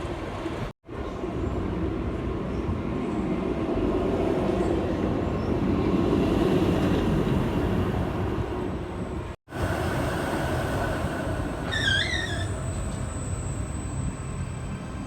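Ice Breaker steel launched roller coaster train running over its track on an empty test run, a wheel rumble that swells in the middle. The sound cuts out abruptly twice.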